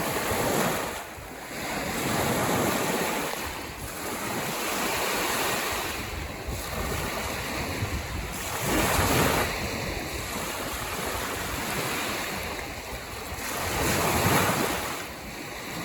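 Lake waves washing onto the shore, swelling and falling back every few seconds, with the biggest surges about nine and fourteen seconds in. Wind buffets the microphone.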